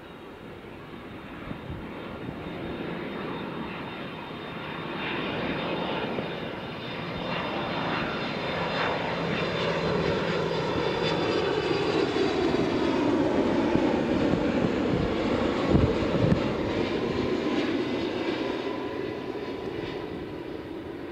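Jet engines of a Boeing 767 freighter on final approach, growing steadily louder as it comes in and passes close by. The engine note then slides down in pitch and begins to fade. Two brief low thumps come about three-quarters of the way through.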